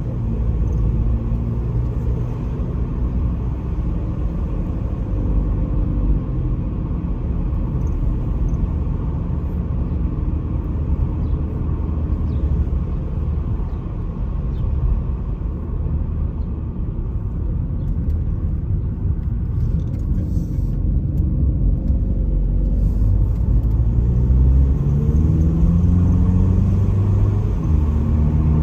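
Car driving on an open road, heard from inside the cabin: a steady low engine and road rumble. Near the end the engine note rises as the car accelerates.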